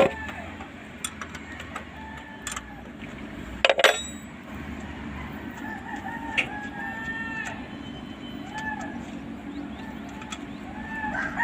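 Chickens clucking in a run of short repeated calls through the second half, with sharp knocks near the start and about four seconds in.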